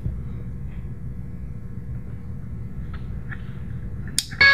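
Steady low rumble of room noise with a few faint ticks, then a sharp click near the end as the small desktop amplifier is switched on. Right after it, music starts playing through Dayton Audio HDN-8 exciters that use the desk as the speaker.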